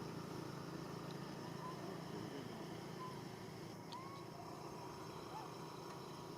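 Outdoor ambience: a steady high insect drone over a low rumble, with a few faint short chirps.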